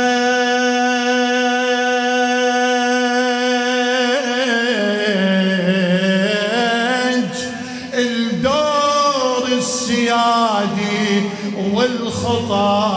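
A man's unaccompanied voice singing a Muharram lament: one long, steady held note for about four seconds, then sliding and wavering through ornamented runs.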